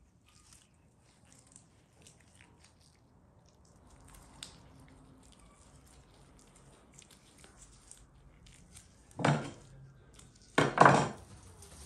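Quiet handling sounds of thread being pulled through the raw lamb's skin as its stuffed cavity is sewn shut: faint rustles and small clicks. About three quarters of the way in comes one loud short sound, and near the end two more close together, much louder than the sewing.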